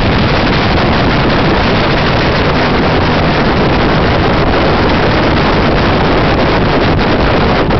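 Offshore powerboat running flat out, heard from on board: a loud, steady rush of engine, water and wind on the microphone, with no change in pitch or level.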